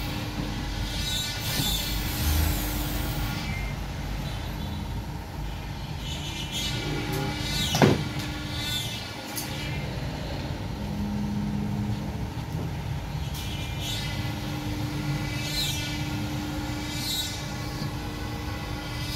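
Steady running noise of CNC workshop machinery, with a hum that comes and goes. A single sharp knock about eight seconds in.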